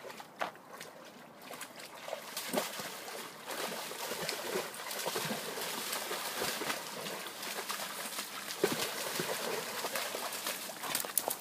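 Rhodesian ridgeback puppy splashing and wading through a shallow creek pool, the water sloshing and splattering, louder from about two seconds in.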